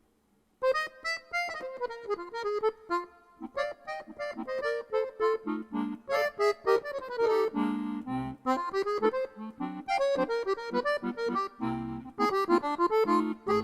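Accordion starting a tune after a brief pause, playing a quick melody over low bass notes.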